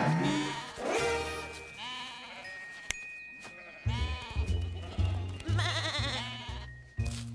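Cartoon sheep bleating several times with wavering pitch over background music. A bass line with a steady beat comes in about four seconds in.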